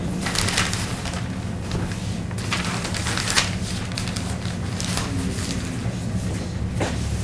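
Steady low room hum with scattered rustling and light knocks, with one sharper knock about three and a half seconds in.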